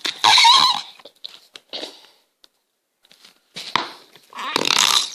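Noise-putty goo squelching in its plastic noise-maker pot, giving wet farting squelches: a loud one at the start and two more near the end.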